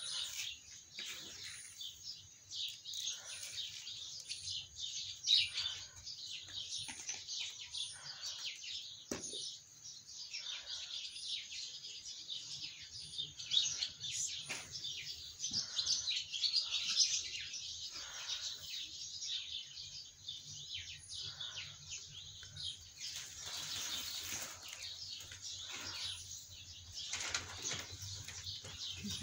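Dry wheat grains rubbed and sifted between hands over a bucket, a dense, continuous rustling. A bird chirps at regular intervals in the background.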